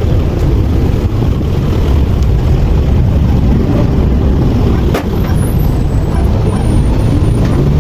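City street traffic: a steady, loud low rumble of vehicle engines, with a single sharp click about five seconds in.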